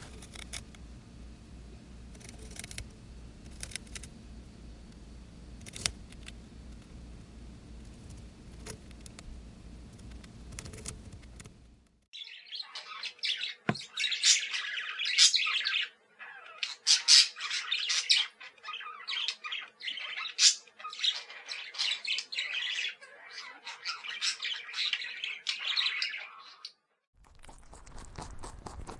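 Faint scattered clicks and rustling from a hamster in wood shavings. Then, about twelve seconds in, a flock of budgerigars starts chattering and warbling with rapid high chirps for about fifteen seconds. Near the end a rabbit chews grass with soft crunching.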